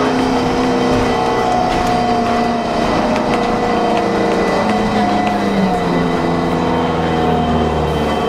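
Transit bus running, with its steady road and drivetrain noise and a whining tone that holds a pitch and then steps up and down every second or so: the bus's weird sound.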